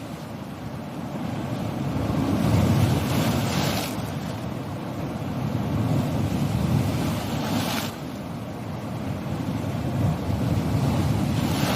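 Sea waves on a shore: a steady low rumble of surf, with a wave washing in about every four seconds.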